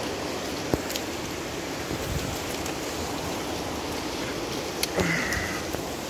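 Shallow creek water running over rocks: a steady rush, with a couple of sharp clicks, one under a second in and one about five seconds in.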